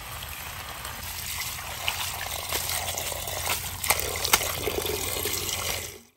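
Steady rush of running or splashing water, with scattered clicks and taps in the second half. It cuts off suddenly near the end.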